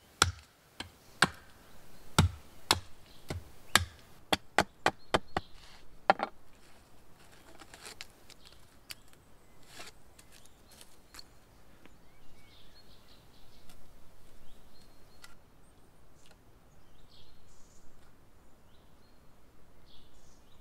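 Wood being chopped with a blade at camp: a quick series of sharp knocking strikes, about two a second, through the first six seconds, then only a few faint scattered clicks. Faint bird chirps can be heard in the second half.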